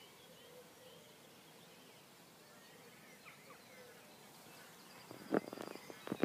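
Faint outdoor ambience with small birds chirping in the background. A few loud knocks near the end, the thump of the camera being handled as it starts to pan.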